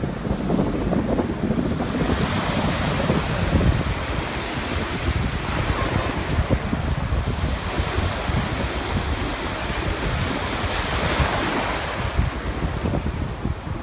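Ocean surf breaking and washing in, the hiss of whitewater swelling twice, with wind buffeting the microphone as a steady low rumble.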